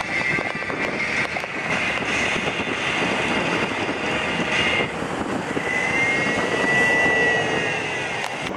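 Steady rush of traffic passing on a highway, mixed with wind. A high whine rises and falls about six seconds in, as a vehicle goes by.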